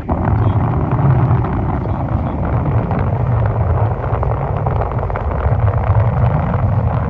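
Small boat's motor running under way, with wind buffeting the microphone: a loud, low rumble that comes up suddenly at the start and then holds steady.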